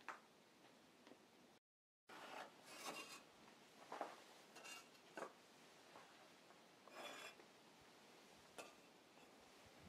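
Faint, scattered scrapes and light knocks of wood being handled at the firebox of a wood-fired train kiln, over near silence.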